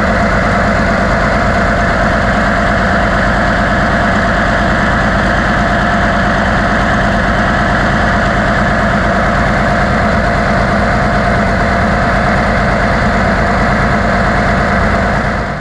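Large multi-cylinder engine of a modified pulling tractor running loud and steady at idle, with no revving.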